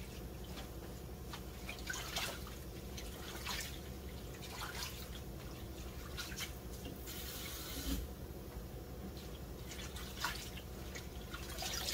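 Hands rinsing leafy greens in water in a stainless steel sink: small splashes, drips and leaves being lifted and shaken, with a short rush of water about seven seconds in.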